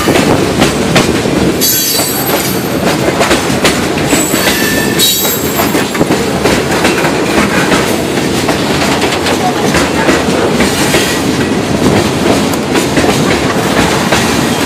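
Freight train's boxcars and tank cars rolling past at close range: a steady rumble with the wheels clattering over the rail joints. Brief high-pitched wheel squeals come about two seconds in and again around four to five seconds.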